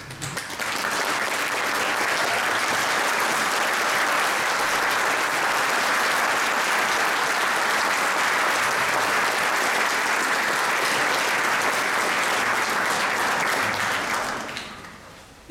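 Audience applauding: a dense, steady clapping that starts about half a second in, holds evenly, then dies away near the end.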